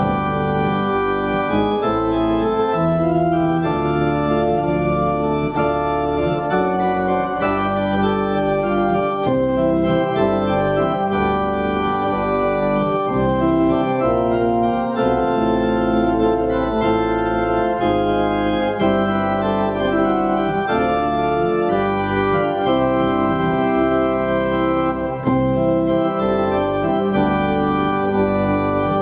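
Organ music, likely a Hammond-style electric organ, playing chords and a melody without a break.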